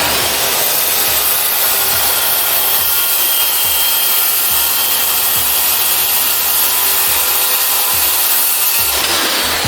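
Circular saw running and cutting through plywood, a loud steady whine of blade and wood that changes character near the end.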